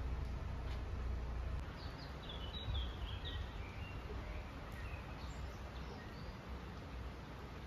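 A bird calling a quick run of short high chirps, starting about two seconds in, over a steady low background rumble.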